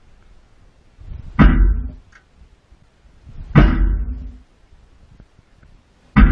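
Three loud bangs about two seconds apart, each ringing briefly before it dies away.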